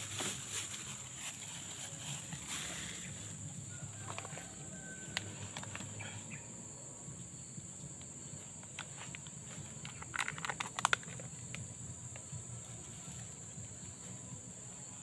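Insects droning steadily in high, even pitch, with a few sharp clicks scattered through and a quick cluster of louder clicks about ten seconds in.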